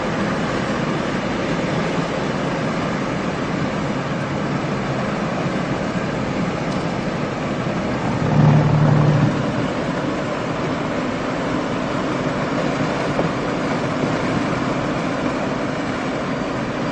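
Steady road and engine noise inside a van's cabin while driving. About halfway through, a brief low hum rises above it for under a second.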